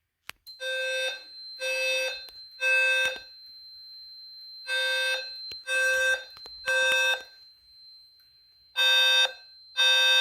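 A 520 Hz low-frequency fire alarm sounder blaring in the temporal-three evacuation pattern: three half-second buzzy blasts, a pause, then three more, with a third set beginning near the end. A thin steady high-pitched tone runs underneath.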